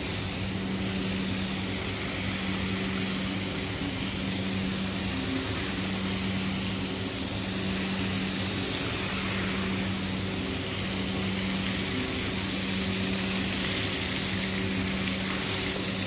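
An electric rug-cleaning machine running steadily: a motor hum with an even hiss over it, unchanging throughout.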